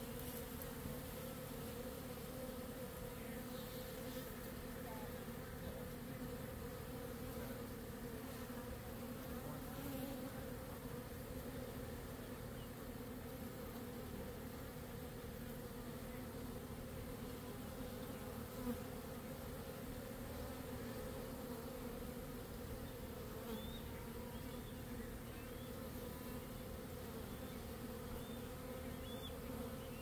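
A honey bee swarm of about ten pounds humming steadily, the clustered bees freshly dropped onto the top bars of a hive box.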